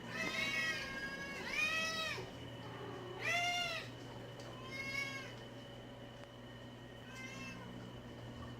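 A domestic cat meowing about five times: drawn-out, arching meows, the later ones weaker. A steady low hum runs underneath.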